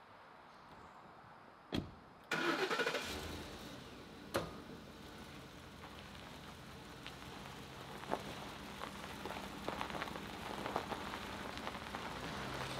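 A vehicle door shuts, then a pickup truck's engine starts and settles into a steady idle, with another thump a couple of seconds later. The truck then pulls away across the gravel lot, tyres crackling on the gravel and growing louder as it comes nearer.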